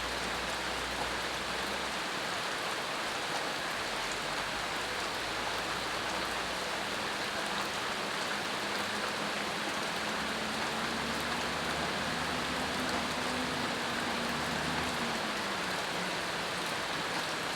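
Steady rain falling, an even hiss of drops with no change in strength.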